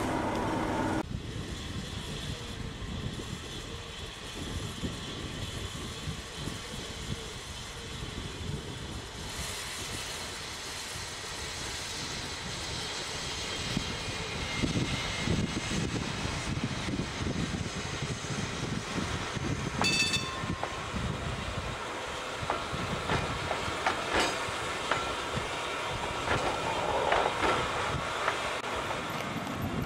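Snaefell Mountain Railway electric tramcars running along the track, a steady rumble with wheels clicking over the rail joints. There is a brief high tone about twenty seconds in.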